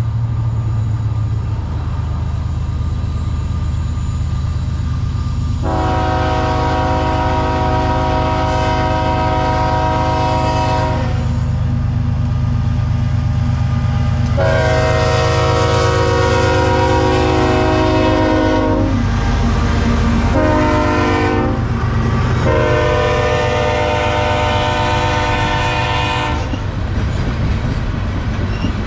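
Approaching diesel freight locomotives rumbling low and steady, their multi-note air horn sounding two long blasts, a short one and a long one, the grade-crossing signal. Near the end the tank cars roll past with wheel clatter on the rails.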